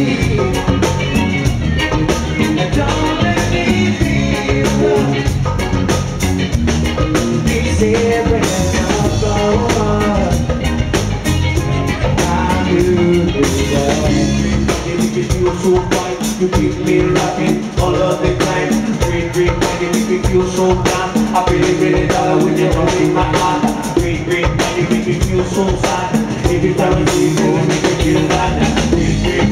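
Live band playing loud, upbeat music, with a percussionist slapping a set of stand-mounted hand drums among the drums and a singing voice.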